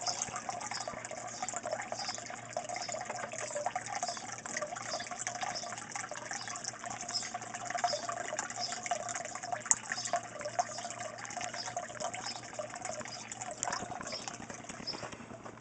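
Water trickling and splashing steadily into an aquaponics fish tank, a continuous run of small splashes.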